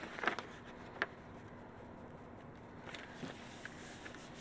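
Sheets of printing paper rustling as a pulled print is lifted off and a clean sheet is laid onto the gel printing plate, with a sharp tap about a second in. Faint scuffing of hands pressing the paper down follows.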